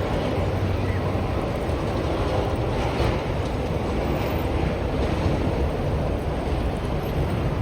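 Steady low rumbling noise with no clear separate events.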